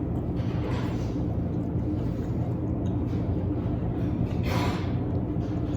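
Steady low room hum, with two short breaths of air about half a second in and again about four and a half seconds in.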